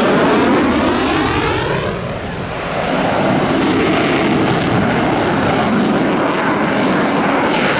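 Eurofighter Typhoon's twin Eurojet EJ200 turbofans, loud jet noise from a low pass. The sound sweeps down in pitch over the first two seconds as the jet goes by, then holds as a steady, loud roar.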